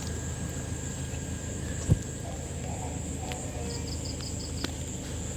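Insects trilling steadily in a high, constant buzz, with a short run of about five quick chirps a little past halfway, over a low background hum. A single sharp click about two seconds in.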